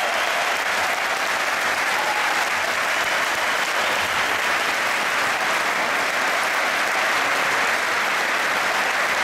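Large arena crowd applauding: thousands of hands clapping in a dense, steady roll that does not let up.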